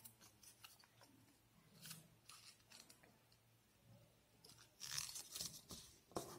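White paper being folded and creased by hand: faint crinkles and rustles, loudest in a burst of crackling about five seconds in and one sharper crackle near the end.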